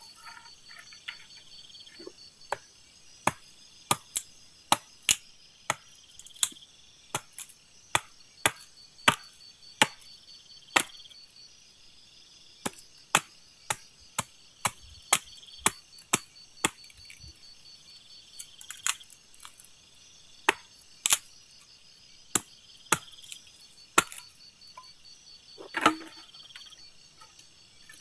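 Wood being chopped: a long run of sharp, irregular knocks, about one or two a second, over crickets chirping steadily.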